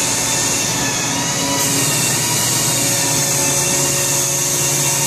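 Komo VR 825TG CNC router running with its head down on a sheet, a steady loud noise of the spindle cutting and the dust extraction pulling air, with a strong high hiss that turns a little brighter about a second and a half in.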